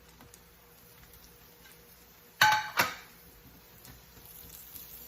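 Two ringing metallic clinks, a cooking utensil knocking against a frying pan, about two and a half seconds in, half a second apart. A faint sizzle of onion and garlic frying in butter rises near the end.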